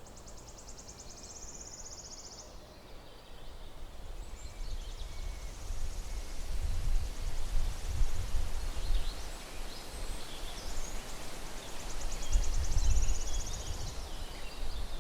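Outdoor ambience: an uneven low rumble, typical of wind on the microphone, grows louder from about a third of the way in. A high, rapid, evenly pulsed trill sounds twice, at the start and again near the end.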